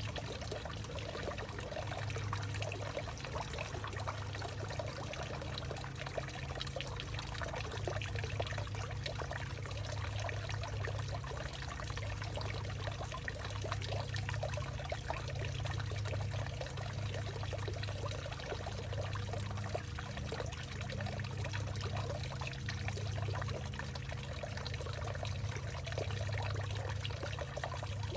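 Water pouring and trickling steadily through a hollowed-out tree, with a low hum underneath that swells and fades every second or so.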